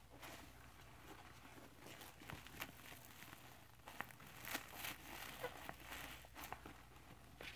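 Rubber-gloved hands squeezing and kneading soapy Scrub Daddy sponges in a bucket of cleanser suds: faint wet squishing of the foam with scattered small clicks.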